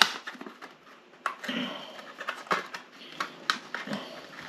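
Kitchen knife cutting a green pepper on a cutting board, with a sharp click of the blade on the board at the start. Then a few scattered light taps and soft rustles as the cut pepper is handled.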